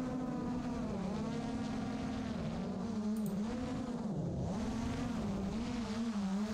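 7-inch FPV quadcopter's Emax ECO 1700kv brushless motors and propellers buzzing in flight. The pitch wavers up and down, dips deeply about four seconds in, then climbs back.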